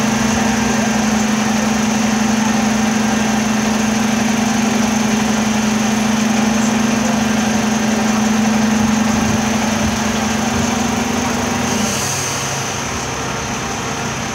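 Dennis Eagle recycling truck's engine idling steadily, with a steady hum over it that stops about twelve seconds in.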